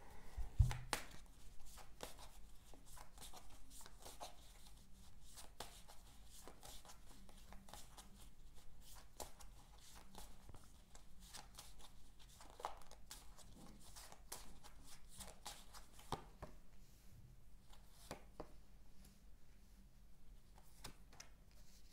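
A deck of playing cards being shuffled and handled by hand: faint, irregular soft clicks and rustles of cards, with a low thump about half a second in.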